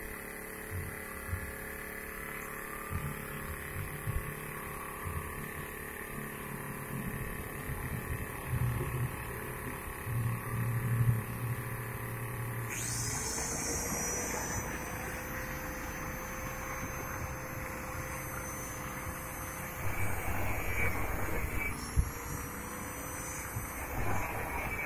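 Electric hand angle grinder spinning up about halfway through and running with a high whine, its pitch slowly falling, while cutting through the steel pipe of a rusted lattice frame. Near the end the whine briefly drops and picks up again.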